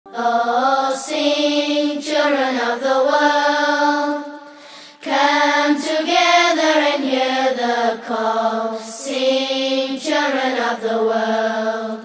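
An unaccompanied Islamic nasheed: a voice sings a slow melody in long, held, gliding notes with no instruments, pausing briefly about four seconds in.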